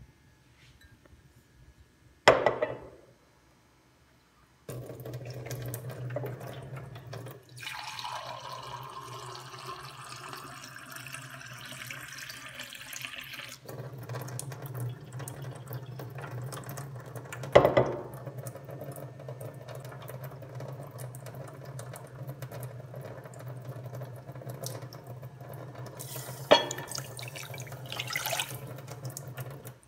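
Water running, and near the end poured from a glass jug onto dried tea leaves in a granite-coated pot. Three sharp knocks of cookware are heard, with a steady low hum underneath from a few seconds in.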